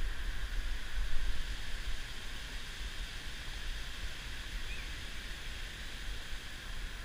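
Steady rushing of a shallow river running over stones, with a low wind rumble on the microphone.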